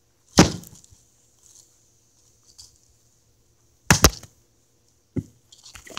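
A wooden log slammed onto a cheap camera lying on the ground: one heavy thud about half a second in, a quick double blow around four seconds in that throws up soil, then lighter knocks near the end.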